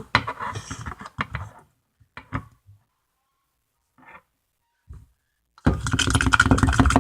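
A spoon scraping and clicking against a container as glue slime is worked off it, then, from about five and a half seconds in, a loud passing vehicle on the street outside, with a rough, rapidly pulsing engine sound.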